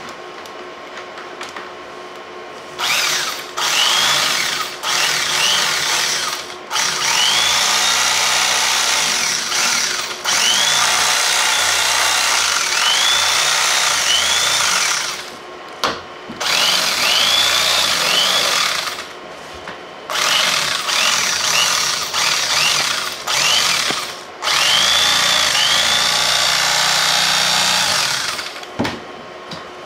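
Corded electric carving knife cutting through a gun case's foam insert. Its motor runs in stretches of a few seconds with short breaks, starting about three seconds in and stopping near the end, with a whine that swoops up and down as the blades work through the foam.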